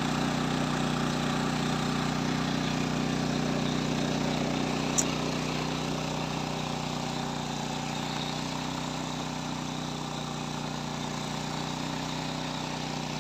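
A motor running steadily with an even, unchanging hum, and one sharp click about five seconds in.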